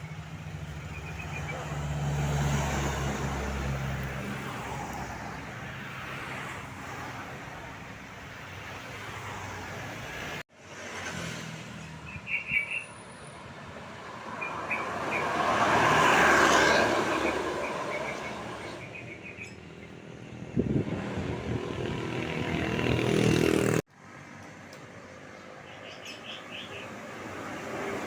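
Road traffic with large vehicles, most likely tour buses, passing close by: a low engine hum, then engine and tyre noise swelling and fading as each one goes past. A few short high-pitched sounds come in between. The sound cuts off abruptly twice.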